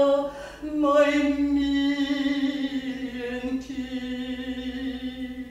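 Contralto voice singing a Russian art song: a note ending, a short breath, then one long held note from about a second in that drifts slightly lower in pitch and stops near the end.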